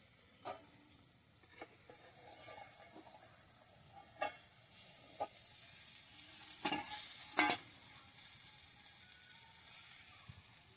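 Banana-leaf-wrapped fish parcels sizzling in mustard oil on a flat griddle as they are turned, with several sharp knocks of a utensil against the pan. The sizzling grows louder about two seconds in.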